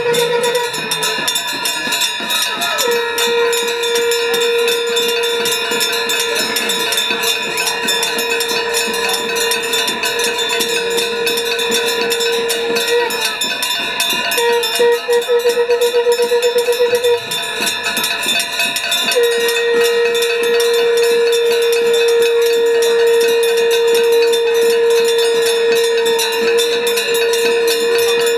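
Conch shells (shankha) blown by several priests in long held blasts on one steady note. The note breaks off twice and warbles in quick pulses for a couple of seconds in the middle. Bells clang continuously underneath.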